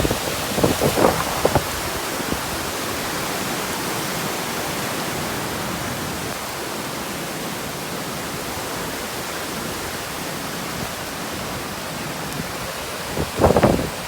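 Typhoon rain and wind, a steady heavy hiss, with a few short low buffets on the microphone in the first second or so and again near the end.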